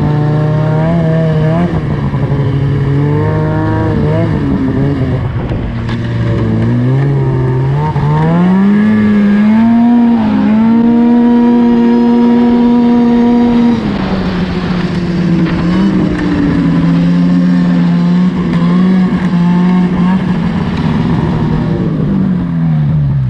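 Polaris 600 Switchback two-stroke twin snowmobile engine under throttle: it climbs, then holds flat for a few seconds about halfway through, only reaching about 7,000 rpm, a bog that keeps it from revving out. It then drops back and runs lower, falling off near the end.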